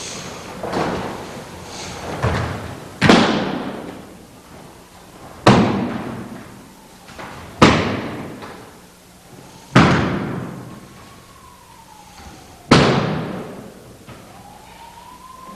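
Break falls: people landing on a mat, a series of slaps and thuds. Two lighter landings come first, then five loud ones about two seconds apart, each dying away quickly.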